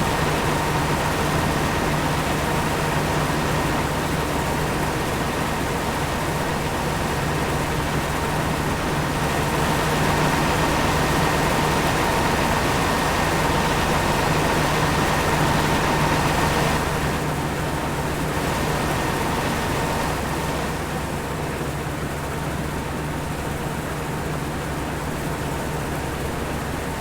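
Steady mechanical hum of a motor or engine running, with a constant drone under a rushing noise; it eases off slightly partway through.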